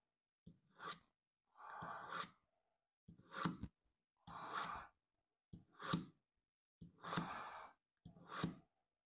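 A steel kitchen knife drawn again and again through a Smith's mini pull-through sharpener to hone a dull edge: seven short scrapes, a little more than a second apart, each ending in a sharp tick as the blade leaves the slot.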